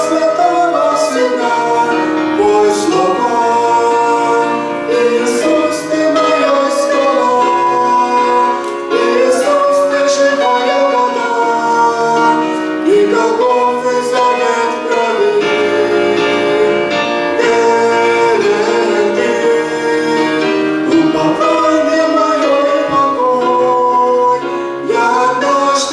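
Choir singing a hymn with instrumental accompaniment, in long held notes.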